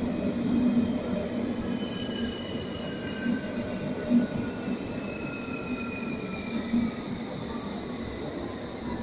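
London Underground S Stock electric train running into the platform and slowing: a steady rumble of wheels on rail with a few knocks, under an electric whine that falls slowly in pitch as it brakes.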